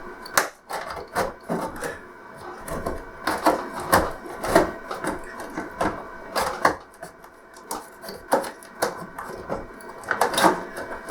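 Plastic pry pick worked along the seam of an LCD TV's plastic casing, giving irregular clicks, scrapes and snaps as the retaining clips pop loose.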